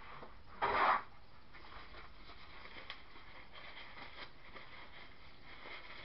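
A short rustling scrape about a second in, then faint rustling and light handling noises as a gloved hand works at the soap mould.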